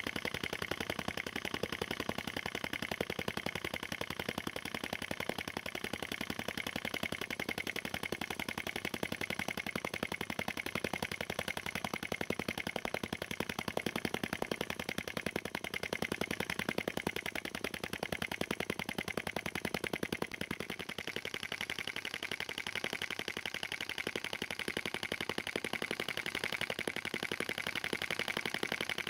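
Small brass vacuum (flame-licker) engine running fast and steadily, with a rapid, even clicking and popping on every stroke as the flame is sucked into the cylinder. Freshly fitted with new bearings and a redesigned valve and spring, it runs like new.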